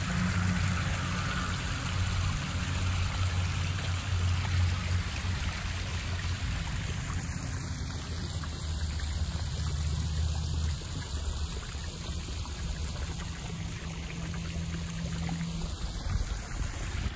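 Backyard koi pond's rock waterfall running, a steady splashing trickle of water, over a steady low rumble.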